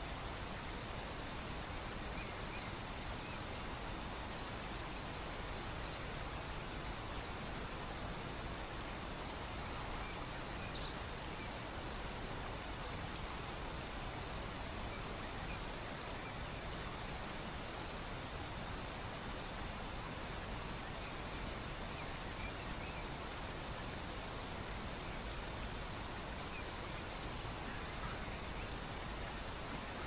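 Shallow river running over stones, a steady even rush of water. A continuous high, fast-pulsing chirping and a thin steady high tone run over it, with a few faint short chirps.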